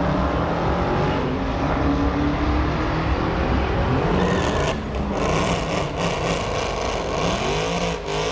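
A drag-racing car's engine at full throttle, accelerating hard down the strip. The note drops briefly for gear changes about halfway through and again near the end.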